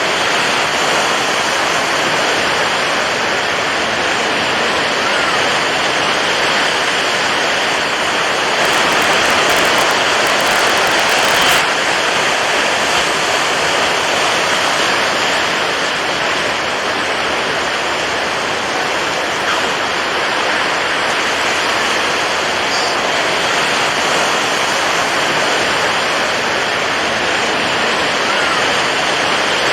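Water waves: a steady rush of water noise, swelling a little for a few seconds about nine seconds in.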